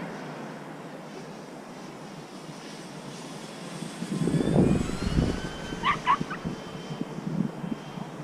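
Electric motor and propeller of a radio-controlled Flightline Spitfire model in flight, a faint whine slowly rising in pitch. Wind buffets the microphone about four seconds in, and two short sharp calls sound near the middle.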